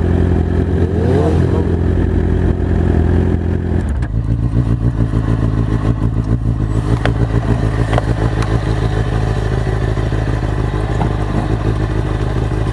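Inline-four 600cc sportbike engines running at the roadside. A louder, higher engine note drops away about four seconds in, leaving a steady, pulsing idle.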